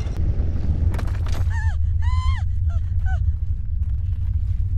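A steady low earthquake rumble sound effect runs throughout. About a second and a half in, four short honking calls come over it, each rising and then falling in pitch; the second is the longest.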